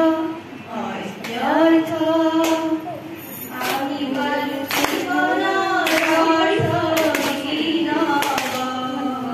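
A woman singing unaccompanied into a microphone, her voice amplified through a PA, with long held notes that bend in pitch.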